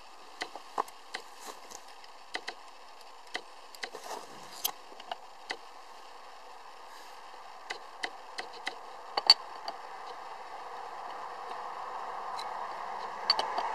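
Short, sharp metal clicks and clinks, in clusters, as a Mile Marker manual hub lock cap is handled and seated on a truck's front wheel hub, one louder click a little past the middle. A steady hiss underneath grows louder toward the end.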